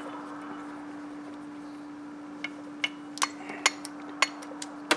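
Sharp metallic clicks and clinks, about eight of them through the second half, as a spade connector is worked off the terminal of an electric PTO clutch. A steady hum at one pitch runs underneath.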